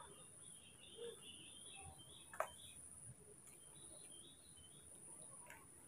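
Faint high-pitched chirping squeaks of baby macaques, in two short strings, with a single sharp click near the middle.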